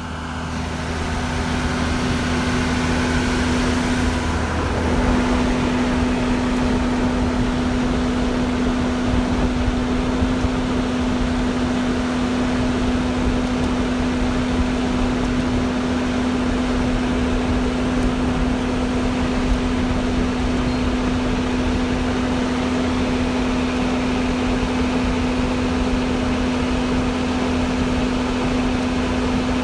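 Diesel farm machinery running steadily: a constant engine drone with a steady hum, fading in over the first couple of seconds.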